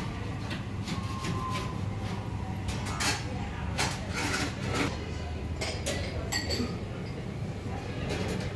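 Frequent sharp clinks and knocks over a steady low hum, with voices in the background.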